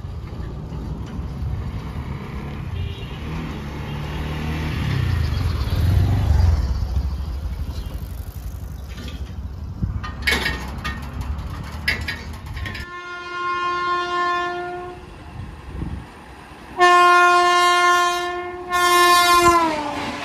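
Indian Railways locomotive's air horn: a short blast, then a longer, louder one whose pitch drops near the end as the locomotive passes close by. Before the horn, a low rumble of road traffic at the level crossing.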